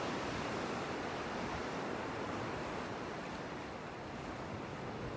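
Steady rush of sea waves washing onto a rocky shore, mixed with wind on the microphone.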